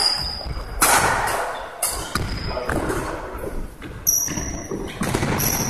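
Badminton rackets striking shuttlecocks: a string of sharp hits roughly a second apart, echoing in a large sports hall, with a few short high squeaks of shoes on the wooden court floor.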